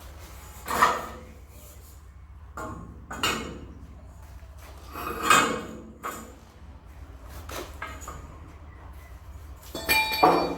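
Knocks and clinks from something being handled: four separate strikes a couple of seconds apart, the last near the end with a brief metallic ring.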